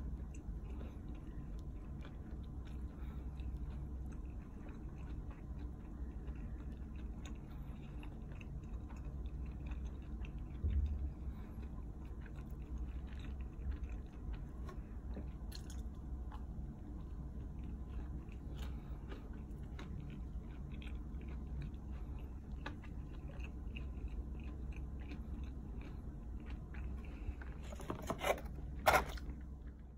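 A person chewing and biting pizza crust close to the microphone, with many small wet mouth clicks over a steady low hum. A low thump comes about eleven seconds in, and a brief louder sound near the end.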